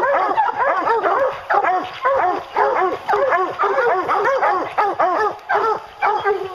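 A pack of English hounds barking treed, several dogs at once, with many overlapping barks every second and no break. It is the sign that the bear has been run up a tree.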